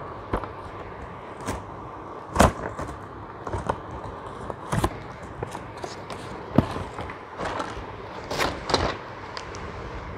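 A cardboard toy box handled and its flap tugged open by small hands: irregular rustles and taps, with a handful of sharper knocks.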